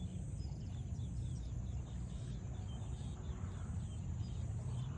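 Low, gusty wind rumble on the microphone, with faint high chirps repeating several times a second and a thin steady high-pitched buzz behind it.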